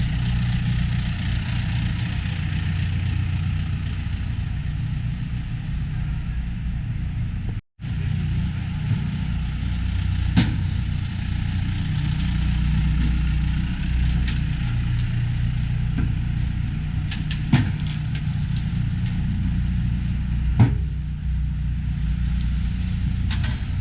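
Tractor engine idling steadily, with a few short sharp knocks over it. The sound drops out for an instant about eight seconds in.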